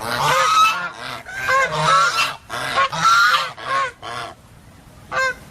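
White domestic geese honking: a rapid run of loud harsh calls over the first four seconds, then a pause and one short honk near the end.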